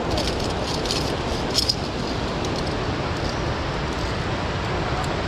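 A few sharp metallic clinks in the first two seconds, carabiners and lanyard gear knocking on the via ferrata's steel safety cable, over a steady rushing noise.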